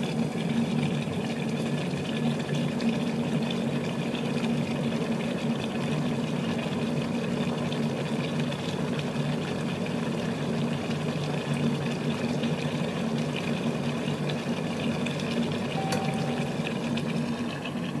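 KitchenAid variable-temperature electric kettle heating half a litre of water, a steady hissing noise with a low hum under it as the water climbs toward the boil.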